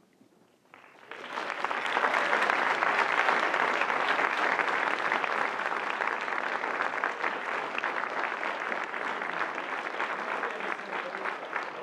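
Audience applauding. It starts about a second in, stays full and dense for a few seconds, then gradually thins toward the end into scattered individual claps.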